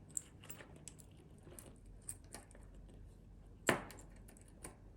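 Small metallic clicks and taps from handling a stainless steel link watch band and its pin-removal tool, with one sharper knock about three quarters of the way through.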